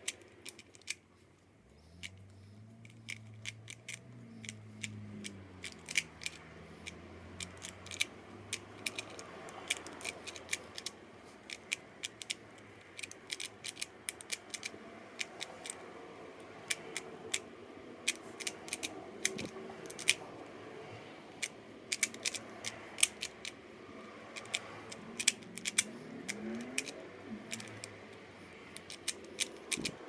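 A 3x3 Rubik's cube being turned by hand: quick, irregular plastic clicks and clacks as its layers are twisted, in rapid runs with short pauses.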